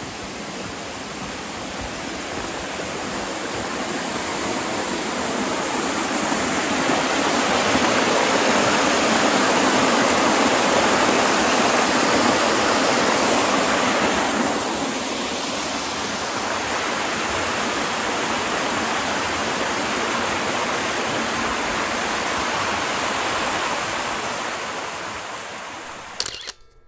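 Small rocky stream rushing and splashing over boulders in little cascades: a steady rush of water that grows louder over the first several seconds, drops a little about halfway, and cuts off abruptly near the end.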